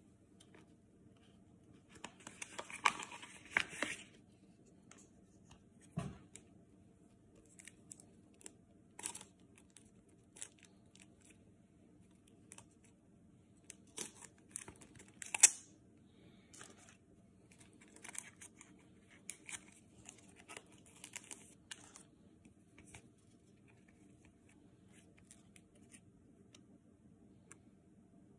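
Trading card pack being torn open and the cards handled: separate bursts of tearing and crinkling with small clicks and taps between, loudest about two to four seconds in and again about fifteen seconds in.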